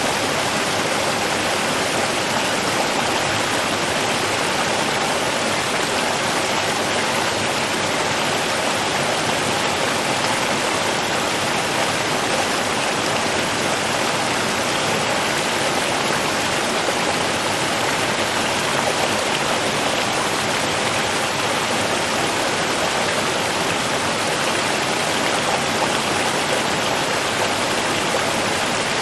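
Running water: a steady, unbroken rush of flowing water.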